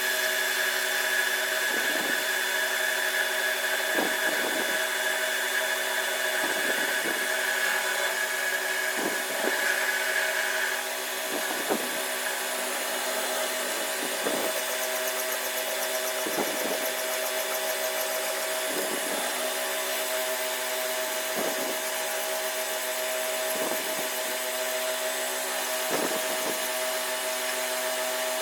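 Workshop power machinery running steadily with a regular pulse about every two and a half seconds; a higher whine on top drops out about eleven seconds in.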